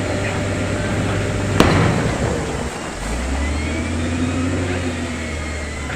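Heavy diesel construction machinery running steadily, its low engine note shifting about three seconds in, with one sharp clank about a second and a half in.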